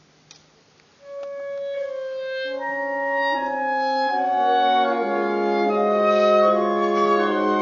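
Orchestral wind section playing: after a brief pause, a single held note enters about a second in, and more wind instruments join with overlapping held notes that build into a sustained chord over a low bass note.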